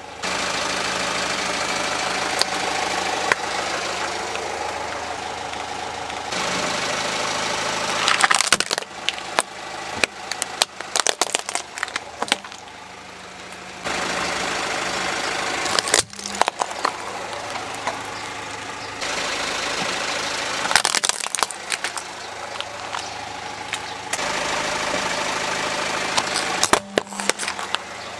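A car engine idling steadily, broken four times by sharp cracking and crunching as the car's tyre rolls over and crushes small plastic toys and other brittle objects.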